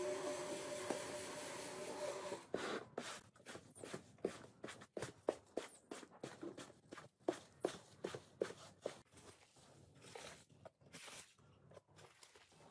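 A rotary floor scrubber runs with a steady hum over the soaked rug and stops about two seconds in. Then come quick wet strokes, two or three a second, from a squeegee and rubber-booted steps pushing soapy water across the rug; they grow fainter near the end.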